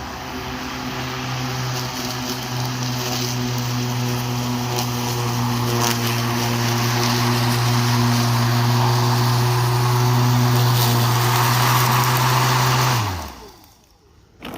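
HART 20V 16-inch cordless lawn mower's electric motor and blade running steadily under load, cutting thick, damp grass, with a steady hum and the hiss of grass being cut. About 13 seconds in, the motor is released and the blade spins down to a stop, its pitch falling quickly.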